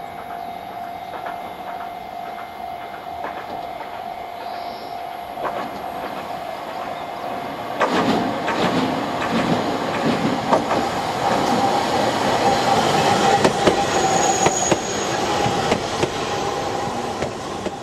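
Chikuho Electric Railway 2000-series electric car approaching and passing close by. A steady whine is heard as it nears. From about eight seconds in, its wheels rumble and click over the rail joints, growing loudest a few seconds before the end.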